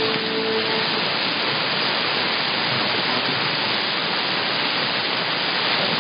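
Shortwave radio static: a steady, even hiss from the receiver tuned to the 11710 kHz broadcast, in a gap in the programme, cut off above about 5 kHz by the receiver's narrow audio bandwidth. The last held note of the preceding music fades out about a second in.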